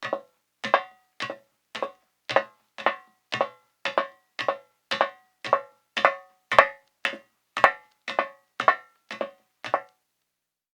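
A woman in high heels walking steadily on a metal surface: about nineteen sharp steps, roughly two a second, each with a brief metallic ring. The steps stop about a second before the end.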